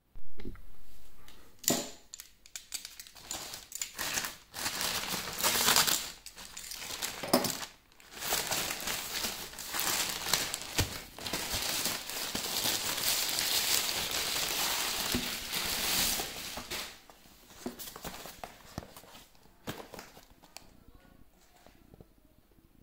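Plastic mailing bag crinkling and rustling as it is pulled off a cardboard box: sharp crackles at first, then a long stretch of steady rustling, fading to light handling noises near the end.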